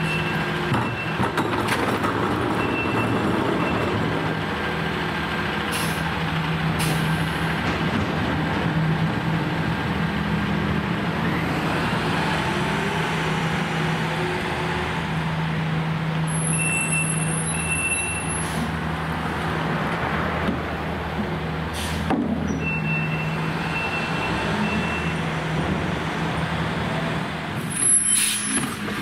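Freightliner rear-loading recycling truck's diesel engine running steadily. Its air brakes hiss twice, at about 17 seconds and near the end, and a short high beep repeats now and then. Recyclables clatter into the hopper near the end.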